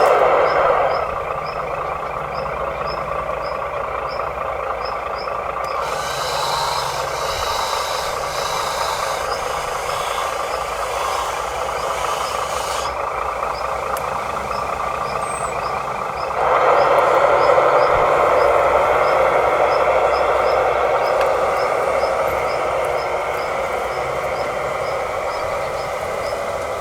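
Small electric motors and gearboxes of radio-controlled construction models whirring steadily, growing louder about two-thirds of the way through. For the first few seconds a faint high tick sounds about twice a second.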